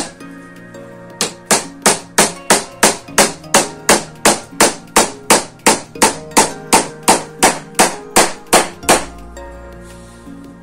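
Hammer blows, about three a second and very even, then stopping about nine seconds in, over quieter background music.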